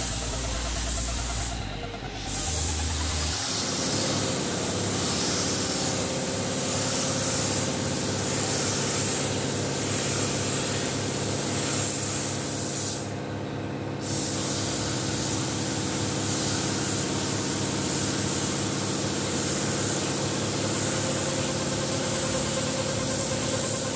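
Compressed-air spray gun hissing as paint is sprayed onto a bus's lower side panel, stopping briefly about two seconds in and again about halfway through as the trigger is let go. A steady machine hum runs underneath.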